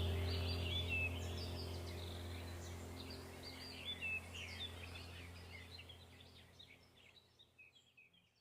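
Many small birds chirping and twittering over a steady low hum, all fading out gradually toward the end.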